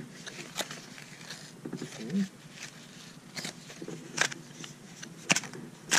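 Cardboard pen box being opened and handled: quiet rustling and rubbing with several sharp clicks and taps spread through.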